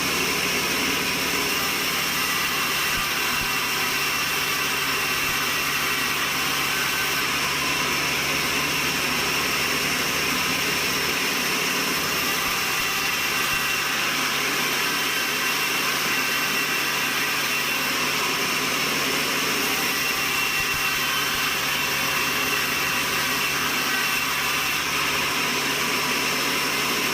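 Sawmill machinery running steadily: a continuous, even mechanical noise with a steady high whine over it.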